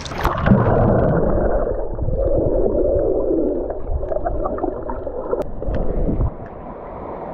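Muffled underwater gurgling and water rush picked up through a GoPro's microphone as it goes under the surface, the sound turning dull just after the start. Faint scattered clicks ride on the wash, and it drops quieter near the end.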